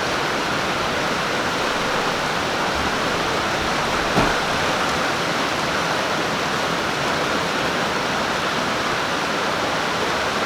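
Heavy rain pouring down in a steady, even hiss, with one brief sharp crack about four seconds in.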